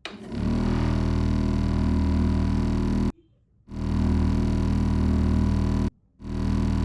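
A low, steady buzz in three long stretches of two to three seconds each, broken by short silences.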